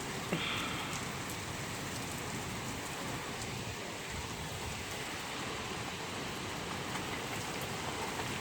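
Heavy rain falling steadily in a storm: a dense even hiss with faint scattered ticks of drops. A brief sharper sound stands out about a third of a second in.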